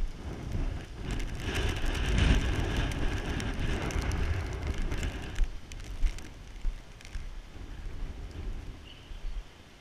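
Storm wind buffeting the microphone, a heavy rumble with rattling and clicking mixed in. It is loudest for the first five seconds or so, then eases off.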